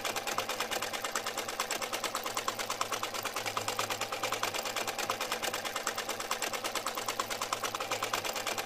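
Small toy sewing machine turned by hand at its handwheel, its needle mechanism clattering in a fast, even rhythm of about eight to nine clicks a second.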